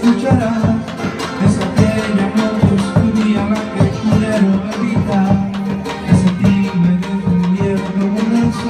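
Instrumental break of a Spanish-language ballad: a melody line over sustained low notes, with a steady drum beat and no singing.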